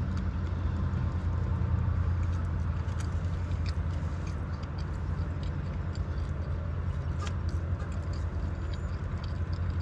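Chewing and biting into a chili cheeseburger with a few faint mouth clicks, over the steady low hum of a running car heard from inside the cabin.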